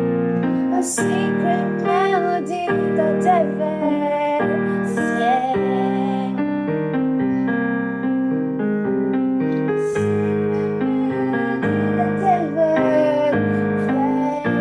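Worship song: piano and keyboard chords under a female voice singing a wordless, wavering melody.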